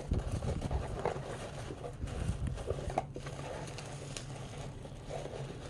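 Bubble wrap and plastic packing crinkling and rustling as hands dig through items in a cardboard box, with irregular small crackles.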